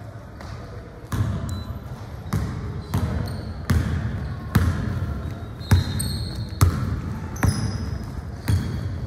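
Basketball bouncing on a hard court floor: a run of sharp thumps about once a second, somewhat uneven, starting about a second in.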